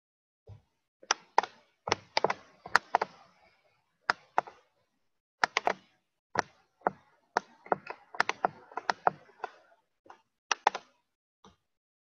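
Computer keyboard being typed on: irregular runs of sharp key clicks with short pauses between them.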